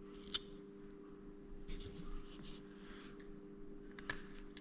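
Faint clicks and light scraping of small parts being handled as an airsoft pistol's gearbox is screwed back together, with a sharp click about a third of a second in and a few more near the end. A faint steady hum runs underneath.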